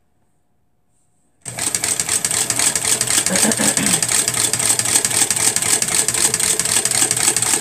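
Small Singer Tiny Tailor electric sewing machine starting up about a second and a half in and running steadily, stitching through fabric with a fast, even rhythm. The machine is sewing properly.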